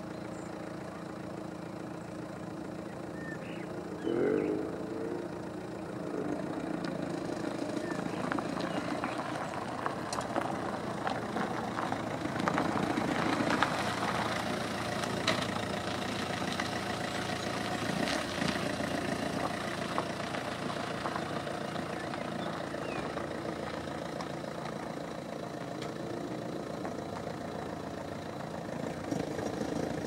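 Motor vehicle engine running steadily: a low hum with a few steady tones, under a general haze of outdoor noise. A brief louder sound comes about four seconds in.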